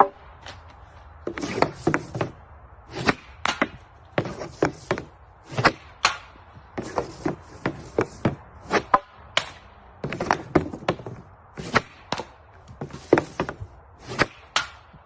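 Hockey stick striking a puck again and again: sharp wooden clacks at an uneven pace of about two a second, some in quick pairs, as the puck is handled and shot.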